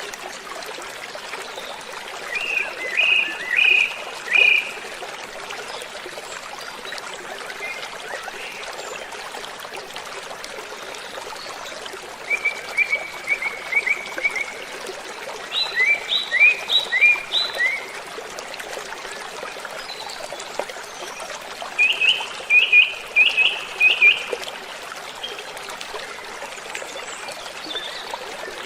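Waterfall rushing steadily, with birds singing four short phrases of quick, high chirps over it.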